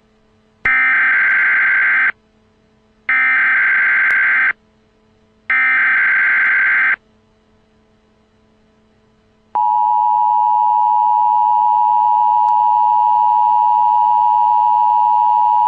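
Emergency Alert System tones for an Amber Alert (child abduction emergency). First come three identical bursts of SAME digital header data, each about a second and a half long, with short gaps between them. About two and a half seconds after the last burst, the steady two-tone EAS attention signal begins and holds.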